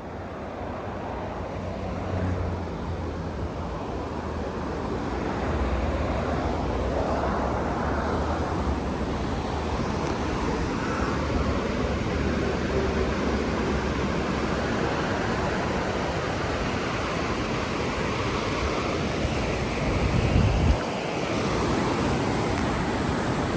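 Steady rushing road-traffic noise with wind on the microphone, building over the first few seconds; a brief louder low rumble comes near the end.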